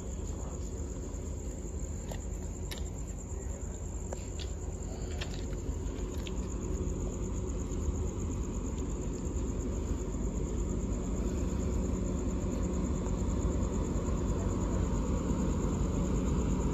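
Alsthom diesel-electric locomotive approaching, its engine rumble building slowly and steadily louder. Crickets chirp constantly at a high pitch throughout.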